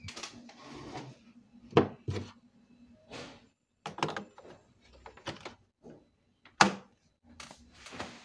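Scattered knocks, clicks and rustles of handling on a wooden bench as a mains plug is fitted into a plastic power strip, with the sharpest knocks about two seconds in and near the end.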